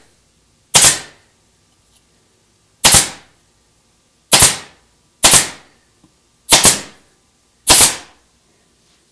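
Staple gun firing six times, driving staples through burlap into a seat-back frame. Each shot is a loud, sharp double snap, one to two seconds apart.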